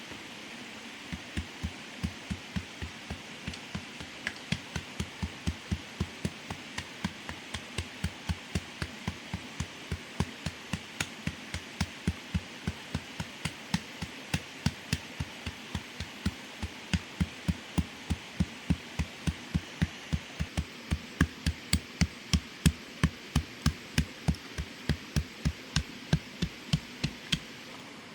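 A steady, even run of short knocks, about three a second, starting about a second in and stopping shortly before the end, over a constant high hiss.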